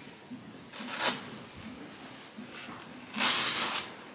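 A horse blowing out through its nostrils: a soft blow about a second in, then a louder, longer breathy snort about three seconds in.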